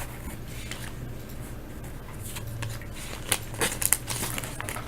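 Trading cards and foil pack wrappers being handled: soft rustling, with a run of short crinkles and clicks in the second half.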